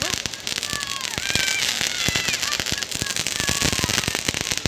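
A string of firecrackers crackling in a rapid, uneven run of sharp pops, with a few short high chirps over it.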